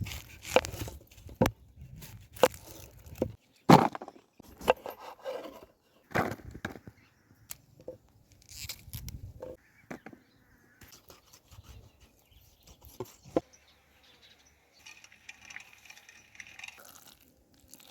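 A series of irregular sharp knocks and cracks, the loudest in the first few seconds, with a stretch of rustling near the end.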